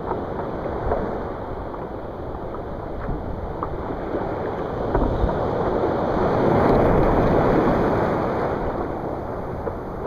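Small surf waves washing up onto a sand beach, with water splashing right at the microphone. The wash swells louder about five seconds in and eases off again near the end.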